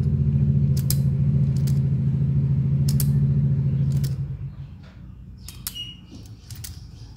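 A steady low mechanical hum, like a nearby engine, fades away about four seconds in, while a hand-held automatic wire stripper is handled, its spring-loaded jaws and ratchet making several sharp clicks and creaks.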